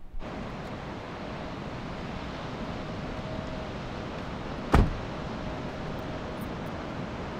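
A Toyota Tundra pickup's door slammed shut once, a little past halfway, over a steady wash of wind and surf.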